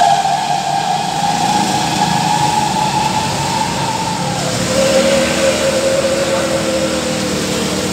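Matsumoto MGG 2000i four-stroke inverter generator running under a light-bulb load. Its steady engine hum carries a whine that drops in pitch about four seconds in as the engine speed settles lower, the inverter's engine speed following the electrical load.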